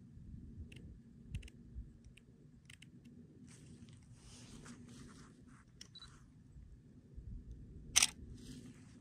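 Handling noise: scattered light clicks and rustles over a low rumble, with one sharp click about eight seconds in.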